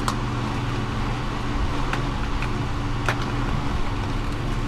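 A steady, even engine-like hum, typical of a vehicle idling, with three short sharp clicks over it.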